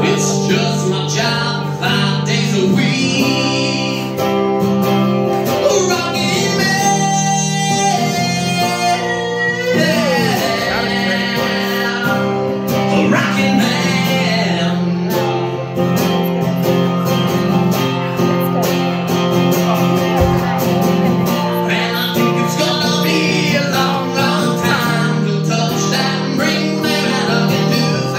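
A man singing live over a strummed acoustic guitar, the chords ringing steadily beneath the voice.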